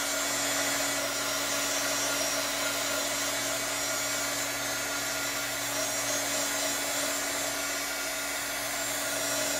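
Heat gun running steadily, a little loud: an even rush of blown air with a constant low hum, warming wet epoxy on a tumbler so it flows.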